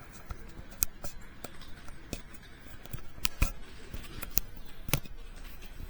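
Scattered sharp clicks and knocks of small hard objects being handled, about half a dozen spread irregularly, the loudest about three and a half seconds in, over a low steady hum.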